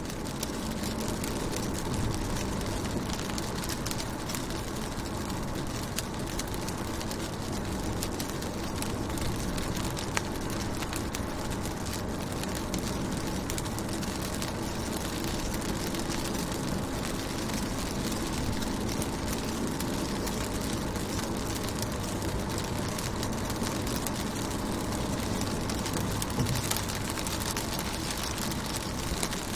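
Rain falling on a car's windows and body, heard from inside the car: a steady patter of many small drop ticks over a constant low rumble.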